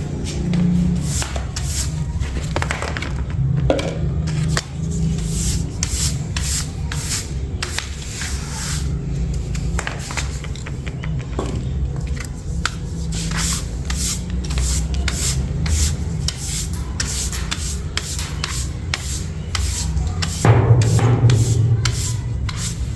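Dry rubbing and scraping by hand, in many short strokes a few times a second, over a steady low hum.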